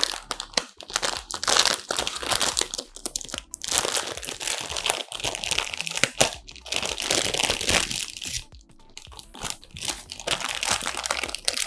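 Plastic packaging being crinkled and handled in irregular bursts, as a new PC component is unwrapped.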